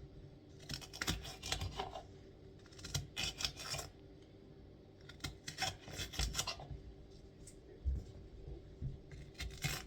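Kitchen knife slicing through a green pepper onto a cutting board, in several short runs of quick cuts with pauses between.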